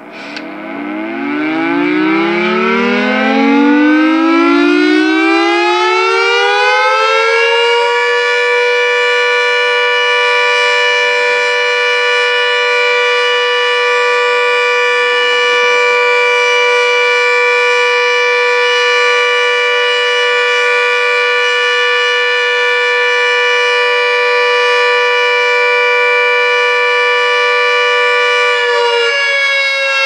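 Pole-mounted hospital alert siren sounding its test, very loud from directly underneath: it winds up from a low pitch, rising for about eight seconds, then holds a steady, many-toned wail, its pitch shifting slightly near the end.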